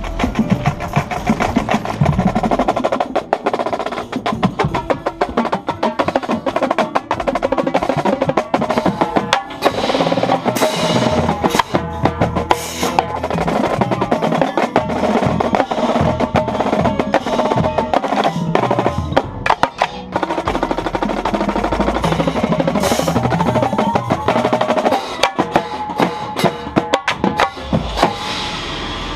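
Indoor drumline percussion music heard from the tenor drummer's position: rapid tenor drum strokes close to the microphone, with snare rolls and sustained pitched notes from the ensemble underneath, and a few bright crashing accents.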